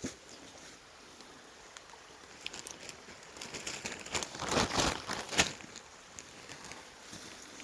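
Footsteps crunching and rustling over rocky, brushy ground, loudest about four to five seconds in, with scattered clicks before it over a faint steady hiss.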